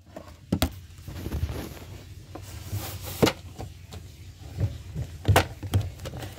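Handling noise from a phone being moved about: a low rubbing rumble with a few sharp knocks and bumps, the loudest about three seconds in and about five seconds in.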